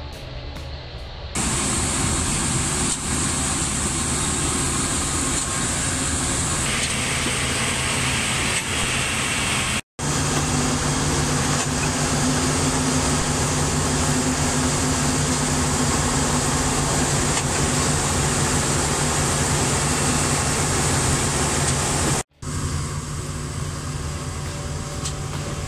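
Plasser & Theurer PLM 07-275 switch tamping machine running close by: its diesel engine runs loud and steady with a low hum. The sound starts about a second in, breaks off abruptly twice and is quieter after the second break.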